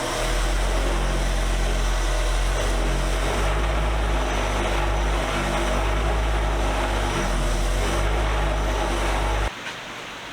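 Electric wire wheel running steadily with a low motor hum and a wide hiss as it brushes grime and rust off the vise's steel parts, stopping suddenly about nine and a half seconds in.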